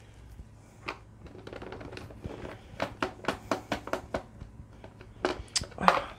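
Screwdriver working at a stubborn screw in a plastic computer keyboard case: runs of quick light clicks, about five a second in the middle, with scattered taps and a louder knock near the end.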